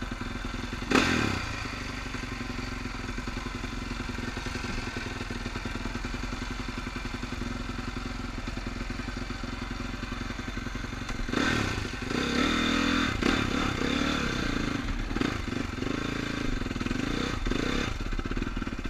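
Dirt bike engine idling steadily, with a short loud blip about a second in. A little past halfway it is revved and pulls away, the engine louder and its pitch rising and falling repeatedly as the bike rides onto the track.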